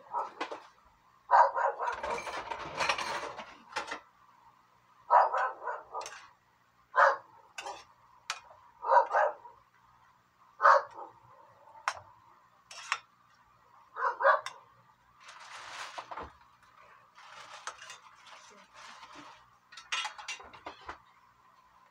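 An animal calling in short, loud cries, about a dozen at irregular intervals, with light clinks of a spatula against the cooking pan.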